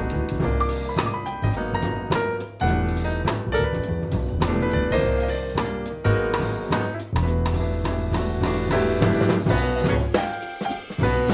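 Live jazz piano trio: piano playing over walking double bass and drum kit with cymbals, from an FM radio broadcast recorded on cassette tape.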